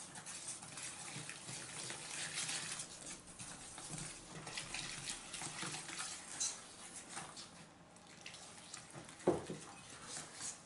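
Hot water poured from a glass into cake batter in a metal springform pan, splashing and trickling while a whisk stirs wet flour and cocoa against the pan. A single knock about nine seconds in.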